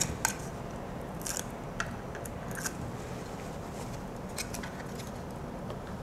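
Scattered light clicks and handling noises from small plastic network adapters and their cables being handled and pressed against a wooden board wall, over a low steady room hum.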